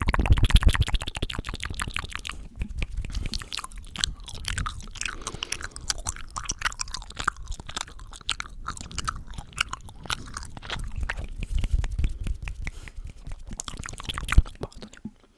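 Close-microphone ASMR mouth sounds: wet tongue clicks, lip smacks and squelching, a dense irregular run of them with one sharp loud click near the end.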